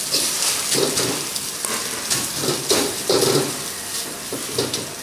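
Fried rice with freshly added water spinach sizzling in a hot wok, with a metal ladle scraping and tossing it four or five times.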